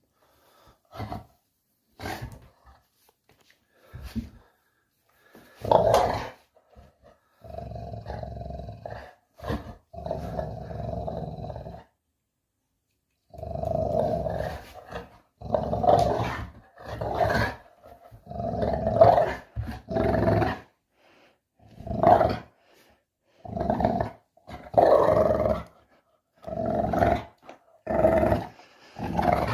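Dog growling in repeated bouts: a few short growls, two long sustained growls in the middle, then a run of growls about a second apart.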